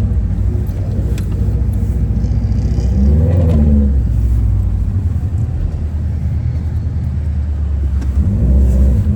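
Subaru WRX's turbocharged flat-four engine running under load, revving up about three seconds in and again near the end.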